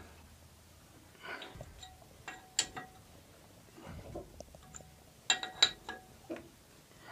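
Scattered light metallic clinks and knocks, some ringing briefly, from a steel bar in the holes of a six-cylinder Baudouin diesel's flywheel as the decompressed engine is barred over by hand into starting position.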